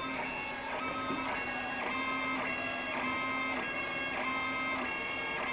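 PancakeBot 2.0 pancake printer at work: its motors whine in tones that shift pitch every fraction of a second as the batter nozzle moves back and forth filling in a drawing. Under them runs a steady low hum that stops about three and a half seconds in.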